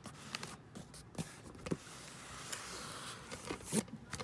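Doll boxes and their packaging being handled and moved: rustling, with scattered knocks and clicks, the loudest knock near the end.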